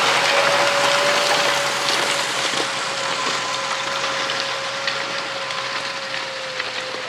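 Machinery running with a steady whine over a loud rushing noise, slowly fading and dropping slightly in pitch.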